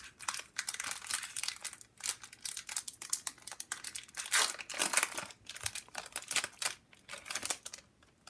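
Foil booster-pack wrapper crinkling in the hands, a dense run of irregular rustles and crackles.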